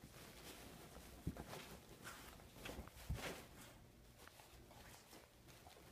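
Faint rustling of a blanket on a couch as a Labrador retriever noses and digs at it to bury a bone, with two soft thumps about a second and about three seconds in.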